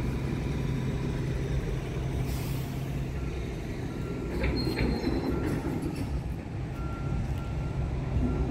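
Scania P380 truck's diesel engine idling steadily, heard at the open engine bay with the cab tilted. A short hiss about two seconds in, and from about three seconds a high beep repeating on and off, like a reversing alarm.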